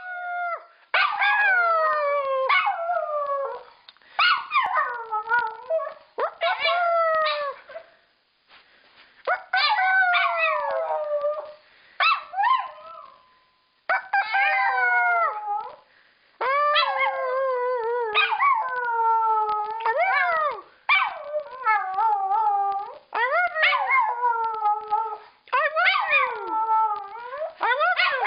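Schipperke dog howling again and again: a string of howls that each start high and slide down in pitch, with short breaks between them.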